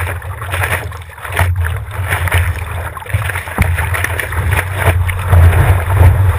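Wind buffeting the microphone of a GoPro on the nose of a stand-up paddleboard, a steady low rumble, with water rushing and splashing along the board as it rides a breaking wave.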